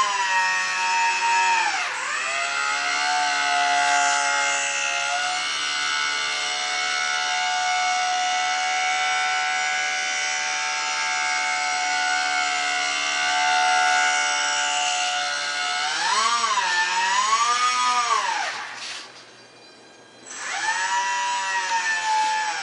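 Ultra-micro RC plane's small electric motor and propeller whining at high throttle, the pitch shifting as the throttle is worked. Near the end the pitch swoops up and down twice, the motor cuts out briefly, then spins up again.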